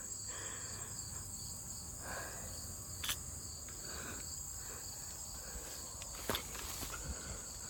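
A steady, high-pitched chorus of insects shrilling continuously in the woods, with two brief clicks, one about three seconds in and another past six seconds.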